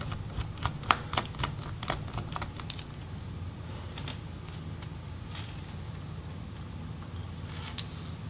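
Light clicks and taps of a small Torx screwdriver working tiny screws and metal covers at a laptop hinge: a quick run of clicks for about three seconds, then only a few scattered ones, over a low steady hum.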